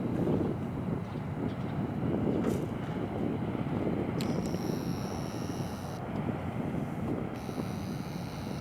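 Tugboat diesel engines working at low speed, a steady deep rumble with wind buffeting the microphone. A faint high-pitched buzz comes in twice in the second half.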